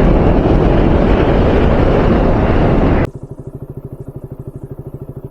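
Loud wind rush on the microphone while riding a motorcycle. About three seconds in it cuts off abruptly to the motorcycle's engine idling with a quick, even throb.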